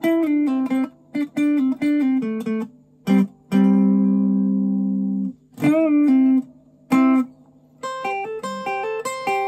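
Fender Telecaster Thinline electric guitar, clean tone, picking out a single-note melody in short phrases with pauses between them. About halfway in a longer sound is left ringing for nearly two seconds, then a note slides in pitch, and near the end a quicker run of notes follows.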